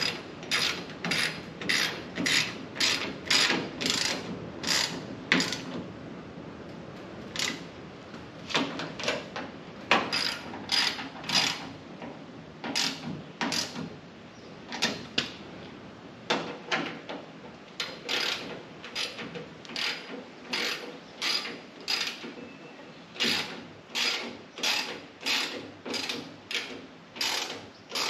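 Hand ratchet clicking as bolts are tightened, in runs of strokes about two a second with short pauses between runs.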